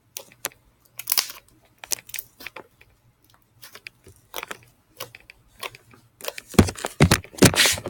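Sequin-filled slime being squeezed and stretched by hand close to the microphone: irregular sticky crackles and pops, coming thicker and louder near the end.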